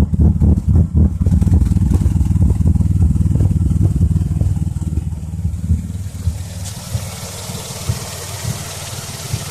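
2004 Chrysler Crossfire's 3.2-litre V6 idling roughly, with uneven low pulsing at first and then a steadier hum. About six and a half seconds in, the engine sound drops and a steady hiss takes over.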